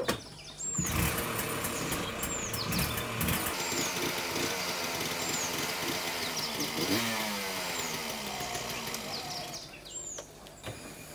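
Auto-rickshaw (three-wheeler) engine started from the driver's seat. It catches under a second in, runs with a brief rev about seven seconds in, and falls away near ten seconds.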